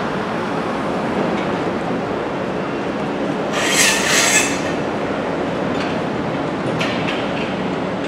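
Steady rumble of construction-site machinery and vehicles, with a loud, high-pitched metallic squeal lasting about a second a little before the middle.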